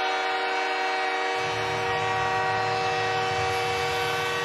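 Arena goal horn for a Canadiens home goal, a chord of several tones blaring steadily over a cheering crowd, with a low rumble joining about a second and a half in.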